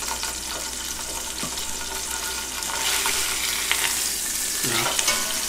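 Chicken breast sizzling in hot oil in a stainless steel pot, with a few light clicks of metal tongs as it is moved. The sizzle grows a little louder about halfway through.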